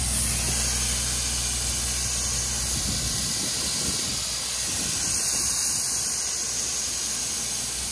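Compressed air hissing steadily through an air hose clamped to a car tire's valve stem, pumping the tire with its ground-down sidewall toward 200 PSI to make it burst. A low steady hum runs under the hiss and stops after about two and a half seconds.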